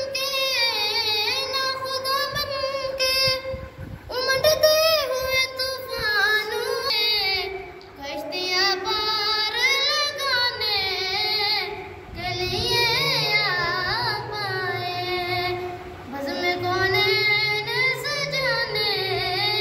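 A boy singing an Urdu naat solo, without instruments, in long ornamented phrases of about four seconds each with short breaths between.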